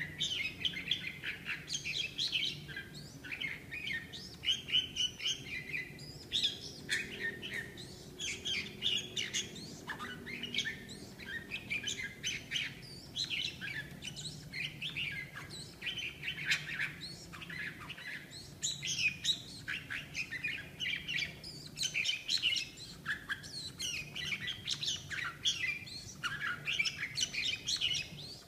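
Red-whiskered bulbul singing a continuous stream of short, quick chirping phrases, the song of a male bulbul during its wing-spreading courtship display.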